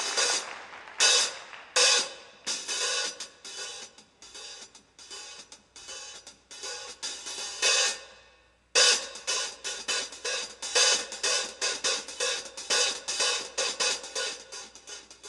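Hi-hat (foot cymbal) played solo with drumsticks, in a fast, irregular pattern of crisp strokes broken by louder accents. It stops briefly about eight seconds in, then starts again with a dense run of strokes.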